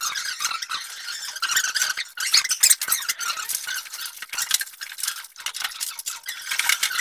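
Hands rubbing and pressing a glossy marble-effect wall sheet flat onto the wall as it is glued in place: an irregular run of squeaks and scuffs.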